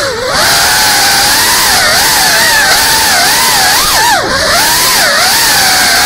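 GEPRC Cinelog 35 FPV drone's motors and propellers whining over a loud rushing hiss, the pitch wavering up and down constantly with the throttle. The whine drops sharply twice, just after the start and about two thirds of the way through, as the throttle is cut and brought back.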